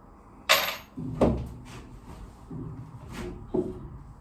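Lengths of timber batten being handled in a cramped boat interior: a brief scrape about half a second in, then several short wooden knocks and thuds.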